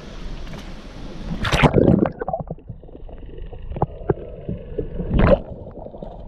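Camera plunging into seawater with a loud splash about a second and a half in, then the muffled sound of being under water, with faint steady tones and scattered clicks. A second loud splash comes just after five seconds as it breaks back out of the water.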